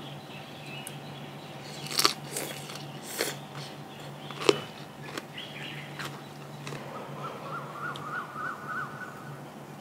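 A few sharp clicks and crunches of eating between about two and five seconds in, then a bird calling outdoors with a quick run of repeated notes near the end, over a steady low hum.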